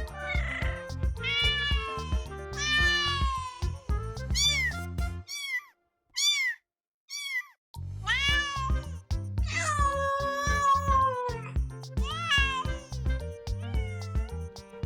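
Kittens meowing again and again, short rising-and-falling mews with one long drawn-out meow about ten seconds in. Background music plays under them, dropping out for a couple of seconds around the middle while a few high short mews go on.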